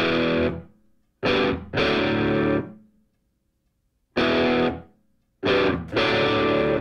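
Soundtrack music: about six loud chords struck and left to ring out, each fading before the next, with short silences between them.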